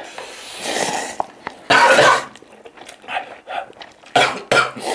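A person coughing hard while eating very spicy fire noodles, with two loud coughs about two seconds in and again near the end, and noodle slurping between them.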